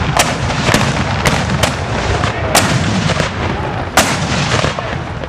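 Black-powder guns firing in a rapid, uneven string of sharp reports, about a dozen in five seconds, over a continuous low rumble of the firing.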